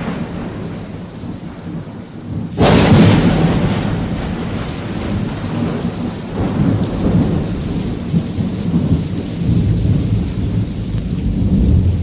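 Thunder and rain: a sudden loud thunderclap about two and a half seconds in, then a long rolling rumble over a steady hiss of rain.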